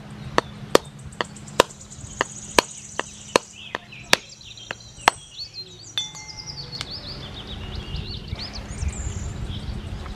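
Hard shell of a wood apple struck again and again with a small steel tumbler to crack it open: about two sharp knocks a second for the first five seconds. After that, birds chirp.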